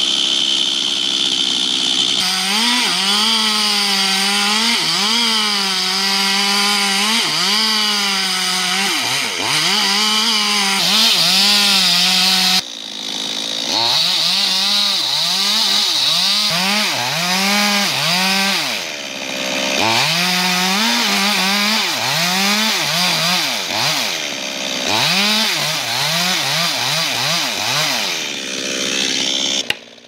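Gasoline chainsaws cutting into the trunks of large trees. The engine note keeps dropping as the chain bogs down in the wood and climbs back as it frees up, and the sound jumps abruptly twice as one cut gives way to another.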